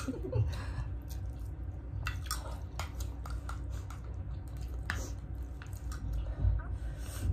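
Close-up chewing of mouthfuls of rice eaten quickly, with scattered sharp clicks of a spoon.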